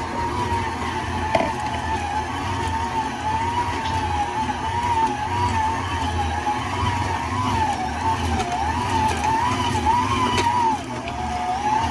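Electric food processor motor running under load as it kneads dumpling dough. Its steady whine wavers up and down in pitch and a low hum pulses as the dough turns, with a dip in pitch near the end.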